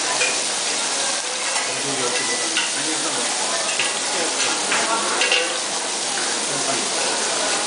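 Slices of pork belly sizzling on a hot ridged metal grill plate: a steady hiss, with a few short clicks as the pieces are turned.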